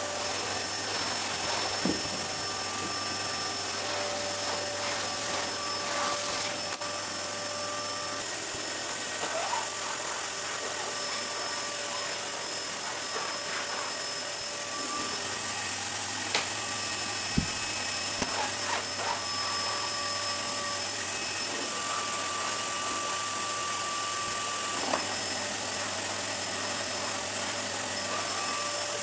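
Canister vacuum cleaner running steadily with a motor whine as its floor nozzle is worked over a laminate floor and rugs, with a few short knocks partway through.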